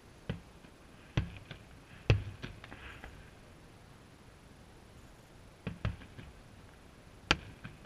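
Distant aerial firework shells bursting: a run of sharp bangs, some in quick pairs, the loudest about two seconds in and one near the end, with a brief crackle after the burst two seconds in.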